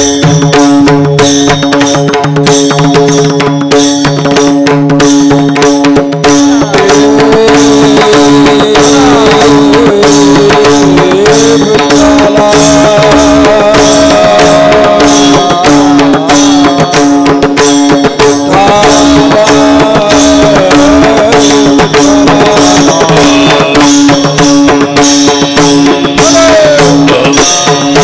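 Devotional kirtan music: hand-drum strokes over a steady sustained drone, with a wavering melodic line coming in about seven seconds in.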